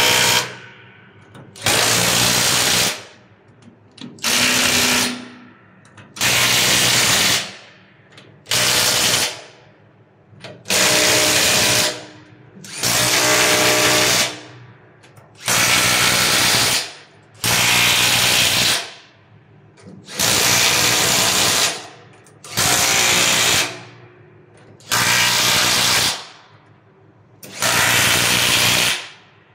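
Cordless impact wrench hammering nuts tight on a tank's bolted manhole cover, one nut at a time. It makes about a dozen bursts of a second or so each, roughly every two seconds, with short pauses as it moves to the next nut.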